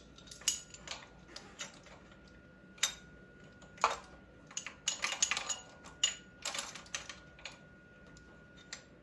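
Metal hand tools and parts clinking and clicking against one another in irregular taps, with a quick run of clinks around the middle.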